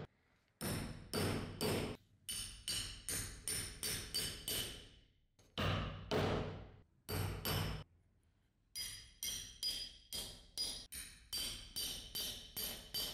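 A hammer repeatedly strikes a steel chisel and hole punch driven through thick leather on a metal bench and anvil. The sharp metallic blows come about two to three a second, each with a brief ringing note. There is a short pause a little before the middle and a longer one past it.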